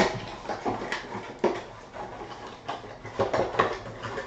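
Trading-card packs being opened and the cards handled and pulled apart: irregular short rustles and light clicks.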